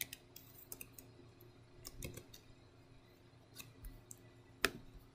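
A few scattered computer keyboard keystrokes and mouse clicks, the loudest a little before the end, over a faint steady hum.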